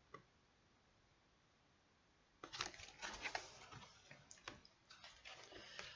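Faint rustling and clicking of a picture book being handled as its page is turned, starting about two and a half seconds in after near silence.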